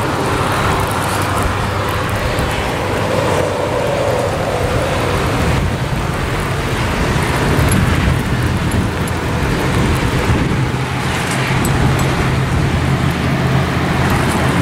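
Steady outdoor noise of rain and nearby road traffic, with a low hum underneath.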